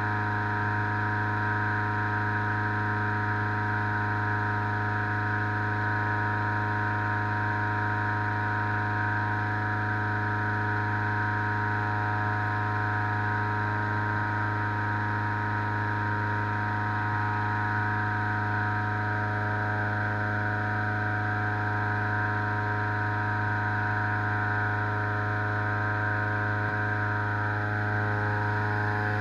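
Petrol-engined balloon inflator fan running steadily at constant speed, blowing cold air into a hot-air balloon envelope during cold inflation; a strong low engine hum with an even drone above it.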